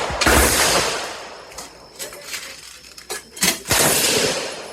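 Pistol shots: one about a quarter-second in and another about three and a half seconds in, each dying away slowly with echo, with fainter sharp cracks between.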